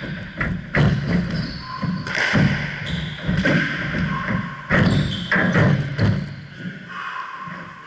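Squash rally: the hollow smack of the ball off the rackets and the court walls every second or so, with shoes squeaking and feet thudding on the wooden court floor. The hitting stops about six seconds in as the rally ends.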